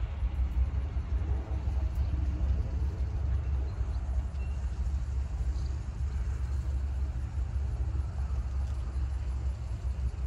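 Wind buffeting the microphone: a low, uneven rumble that rises and falls rapidly.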